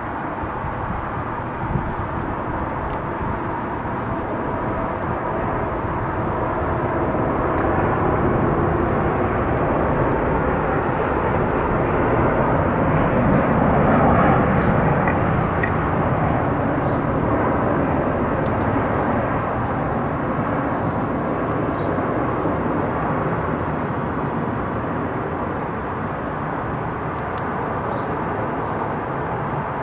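Boeing 787-9 Dreamliner on approach with its landing gear down. The jet noise builds as it passes overhead about halfway through, then slowly fades as it flies away.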